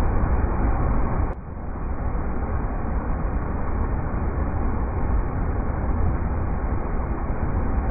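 River rapids rushing, a steady deep rush of water. About a second and a half in there is a click and the sound drops sharply, then swells back over a second, where the looped recording joins.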